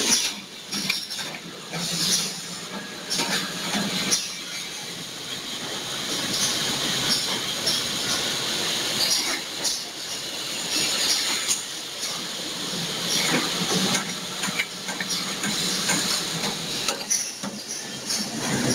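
High-speed automatic cling film rewinding machine running: a steady hissing mechanical whir with frequent clicks and knocks through it.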